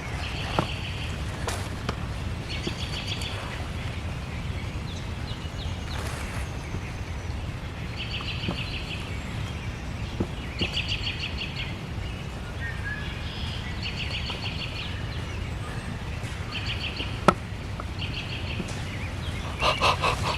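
A small songbird singing the same short, rapid trill over and over, about every two seconds, over a steady low rumble. Near the end there is a single sharp click.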